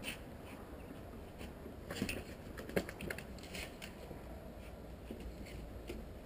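A scattered run of light clicks and taps from a large dog and a man moving about on a stone-tiled terrace. The taps cluster from about two to three and a half seconds in, with the sharpest a little before three seconds, over a low steady background noise.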